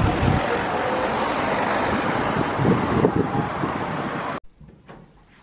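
Wind buffeting the camera microphone over street noise, with gusts of low rumble. It cuts off suddenly about four seconds in, leaving a quiet room.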